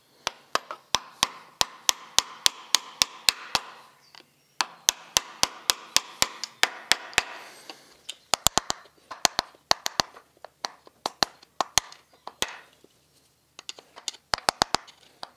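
Sharp metal-on-metal taps as a screwdriver is worked against the connecting-rod cap bolts of a Citroën U23 engine to lock them in place. The taps come in quick runs of several strikes with short pauses between.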